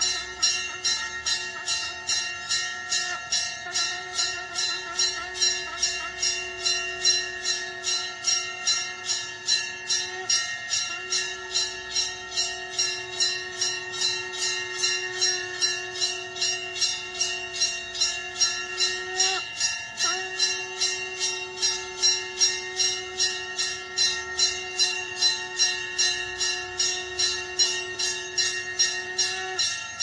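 A shankh (conch shell) blown in long, steady held notes, broken by short pauses for breath about ten and twenty seconds in. Under it a temple bell rings continuously in rapid, even strokes, about three a second.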